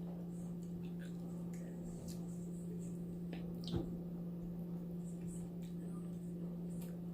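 Faint eating sounds: soft wet chewing and small mouth clicks, with one slightly louder click about halfway through, over a steady low hum.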